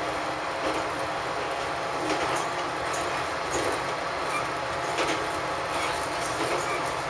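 Diesel railcar running along the line, heard from on board: a steady rumble of engine and wheels on rail, with a few irregular sharp clicks from the track.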